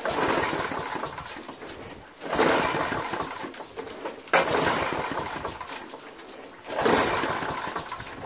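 Briggs & Stratton Quantum engine on a Craftsman self-propelled lawn mower running after a carburetor clean. Its sound swells suddenly and fades away, four times, about every two and a half seconds.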